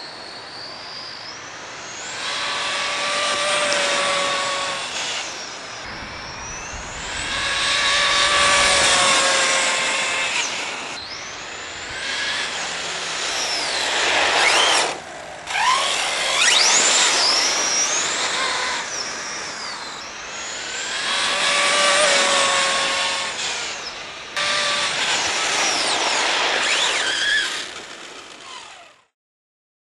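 Robitronic Mantis RC truggy with a Neu 1515/2Y brushless motor on 12 cells, making repeated high-speed passes on tarmac. The high-pitched whine of the motor and drivetrain rises and falls with the throttle and swells louder as the truck comes past. The sound drops off sharply twice when the throttle is chopped and cuts off abruptly near the end.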